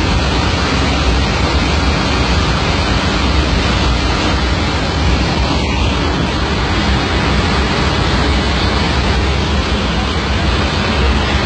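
Loud, steady rushing of air and engine noise inside an airliner cabin with a door open in flight: the roar of a depressurised cabin.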